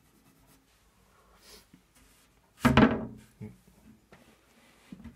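A single loud knock about two and a half seconds in, with a smaller knock near the end. Before it come a few faint scratchy strokes of a coloured pencil on paper.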